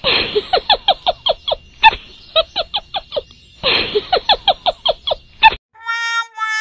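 A rapid run of short, falling, squeaky calls, about five a second, each run opening with a breathy burst; the run is heard twice. Near the end it cuts off and a tune of steady held notes begins.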